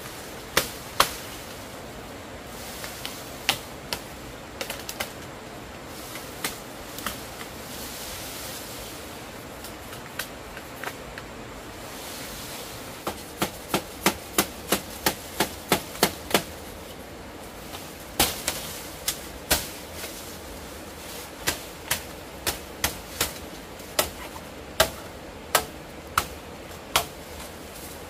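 Sharp knocks, like blows of a hand tool. They come irregularly, with a quick even run of about three a second for a few seconds near the middle, over a steady rushing background noise.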